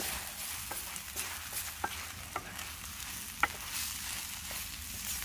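Straight-to-wok udon noodles sizzling in a full frying pan, with a utensil stirring them and clicking against the pan several times. The sharpest knock comes about three and a half seconds in.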